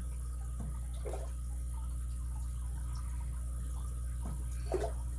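Faint, scattered ticks and small scrapes of a lock pick working the pin tumblers inside a vintage Japanese Alpha padlock's five-pin core, over a steady low hum.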